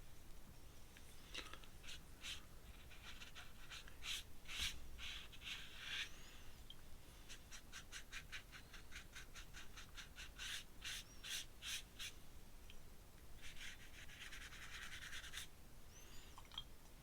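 Faint paintbrush strokes on paper: quick runs of short scratchy dabs, about three or four a second, with two longer scrubbing strokes.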